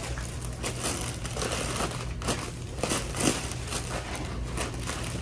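Plastic bags and snack packets crinkling as groceries are handled and packed into a box at a checkout, in irregular rustles over a steady low hum.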